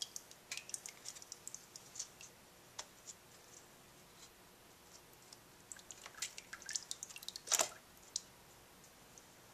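Faint scattered clicks and ticks of a used motorcycle oil filter and its metal center piece being pulled from the filter housing and handled, with one louder click about seven and a half seconds in.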